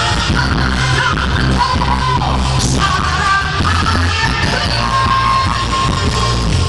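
Pop song with a woman singing over loud band accompaniment with a steady bass line; she holds one long note in the second half.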